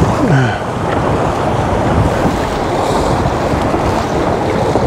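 Wind buffeting the microphone and water rushing and splashing along the hull of a heeled J70 sailboat driving through choppy water in strong wind, as a steady loud rush.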